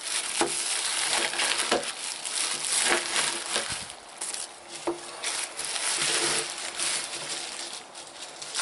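Packaging being unwrapped by hand: plastic and paper wrapping crinkling and rustling, with many small crackles, starting suddenly.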